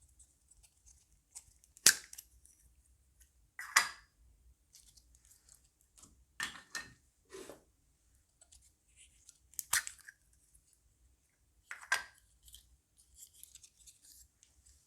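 Crunchy slime being squeezed and kneaded by hand, giving sharp crackling pops about every two seconds with faint crackles in between.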